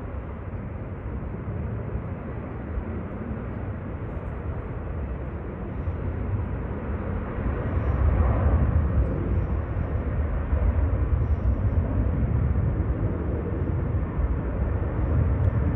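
Jet engine roar of an Aer Lingus Airbus A330 on the runway, a steady noisy rumble that grows louder about eight seconds in.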